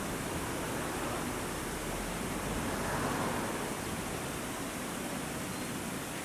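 Steady rushing background noise with a slight swell about three seconds in; no bird calls stand out.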